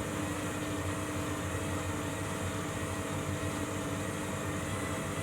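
Candy Grand'O Vita 7 kg washing machine running on a rapid wash, a steady hum with a few faint steady tones, as it works toward the final spin.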